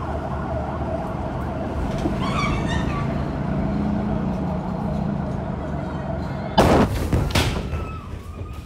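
Shock wave from the 2020 Beirut port explosion striking the building: a sudden, very loud blast about six and a half seconds in, with a second crash and rattling debris after it. Before it there is a steady loud background with a high tone and a low hum.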